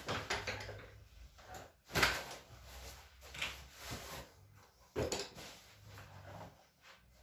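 Knocks and creaks from a wooden folding massage table as a patient's legs and feet are handled, with the sharpest knocks about two seconds and five seconds in.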